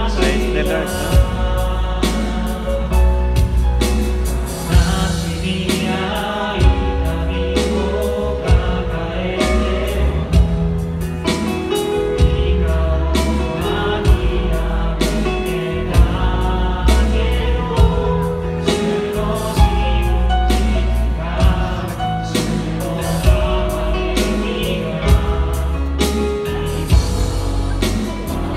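A group of singers singing a worship song together over accompaniment with a steady drum beat and bass.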